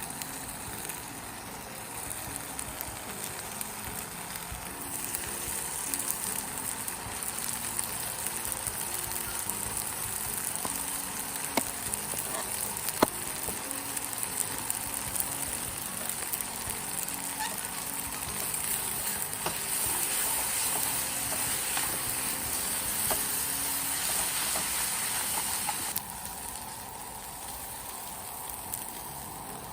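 Food sizzling in a pan: a steady frying hiss with a few sharp pops, louder for a while and dropping off abruptly near the end, over faint background music.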